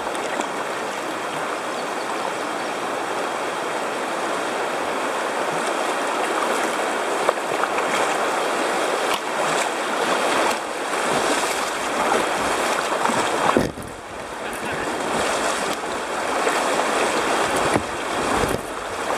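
Whitewater of a small river rapid rushing close around a kayak's bow as it runs through, with scattered splashes against the hull. The rush dips briefly about two-thirds of the way through, then picks up again.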